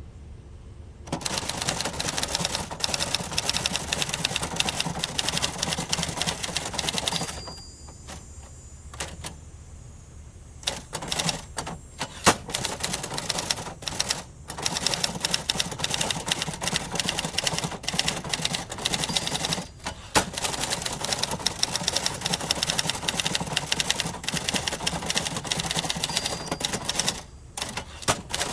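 Typing on a 1970s Adler Gabriele 25 manual typewriter: rapid runs of key and typebar strikes clacking against the platen. There is a pause of a few seconds with only scattered clicks about a third of the way in, and a brief stop near the end.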